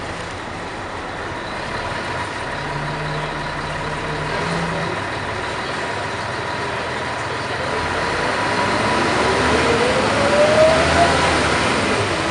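Scania L113CRL bus with its Scania DSC11 diesel engine, heard from inside the cabin, running with engine and road noise. The noise grows louder in the second half, with a rising whine as the bus gathers speed.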